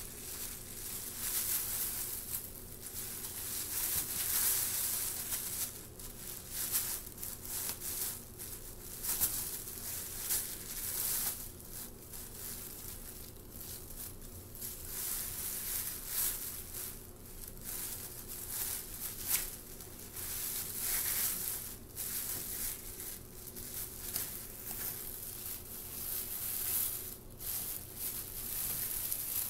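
Thin plastic bag crinkling and rustling in irregular bursts as a cat moves its head around inside it.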